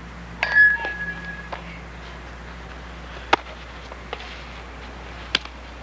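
A softball smacking into a leather fielding glove about three seconds in as a throw to first base is caught, with another sharp crack near the end. A high whistle-like chirp, the loudest sound, comes near the start.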